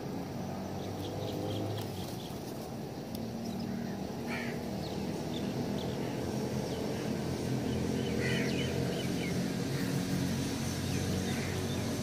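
Short, scattered bird chirps and calls over a steady low engine hum that grows slightly louder toward the end.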